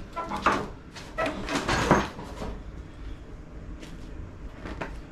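Sheet-metal lawn tractor mower deck being lifted and dragged out from under the tractor: a run of clanks and scrapes in the first two seconds, then a few light knocks.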